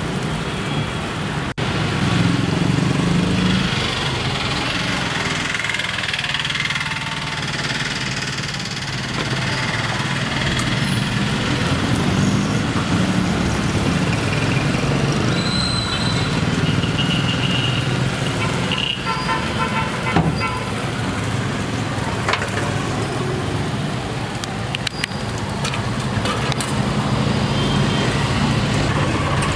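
Road traffic running steadily past, cars and motorbikes, with a couple of brief horn toots near the middle.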